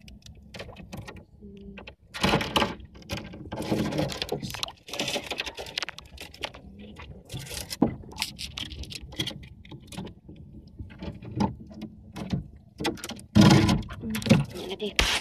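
Rustling and knocking of a wet fishing net with fish caught in it, hauled and handled in a small wooden boat, in irregular bursts that grow louder near the end.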